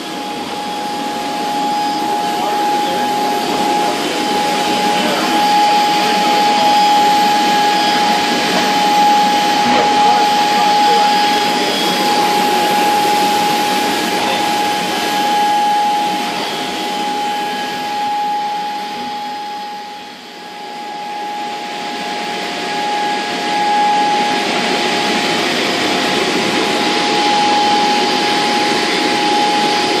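Ruwac WS2320 portable industrial vacuum running steadily together with a Kongsberg XP CNC table's router spindle cutting sheet material. The two blend into a loud, steady whine with a high tone. The sound drops briefly about two-thirds of the way through, then picks up again.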